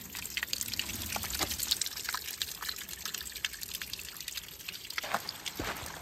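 A small trickle of water seeping out from under a rock and dripping onto wet ground, a steady patter of tiny splashes.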